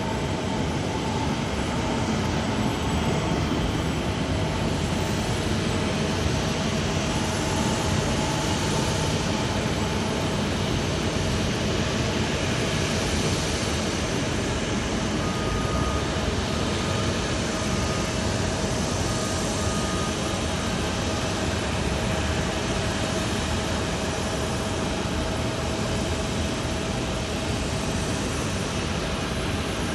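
Steady airport jet engine noise: an even rushing hum with a steady whine, and a few faint short beeps around the middle.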